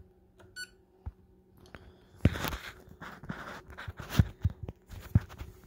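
A digital coffee scale beeps once, briefly, as its button is pressed. From about two seconds in come irregular knocks, taps and rustles of handling.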